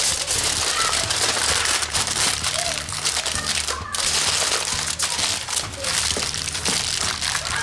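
Heavy-duty aluminium foil crinkling and crackling as it is folded and crimped by hand around a rack of ribs.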